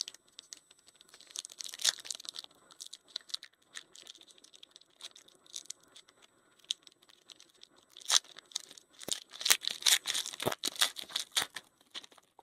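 Trading card pack wrapper being torn open and crinkled, with cards clicking and sliding as they are handled. The crinkling is densest in the last few seconds.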